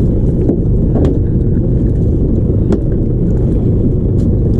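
Fishing boat's engine running steadily: a loud, even low drone, with a few faint clicks over it.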